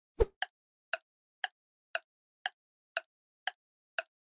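Keyboard typing sound effect: single identical key clicks at an even pace of about two a second, nine in all, the first landing with a low thud.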